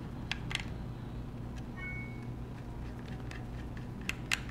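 Faint small clicks of a pentalobe screwdriver working the tiny screws of an iPhone 6: two near the start and two more near the end. A brief faint high tone comes about two seconds in, over a steady low hum.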